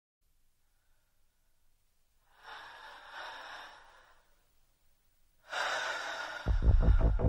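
Near silence, then a soft breath-like hiss about two and a half seconds in that lasts over a second. About five and a half seconds in, the next song begins with a noisy swell, joined a second later by a fast, heavy low pulsing.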